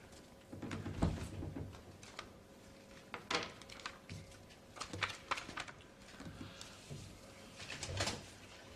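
Scattered rustles and light knocks of paper handling as a small booklet is leafed through and handled at a desk, over a faint steady hum.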